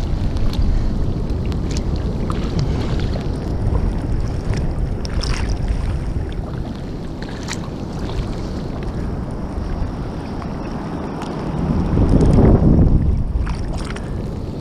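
Ocean water sloshing and lapping around a camera at the sea surface, with wind on the microphone and scattered sharp ticks. A louder surge of rushing water comes about twelve seconds in and fades over a second or two.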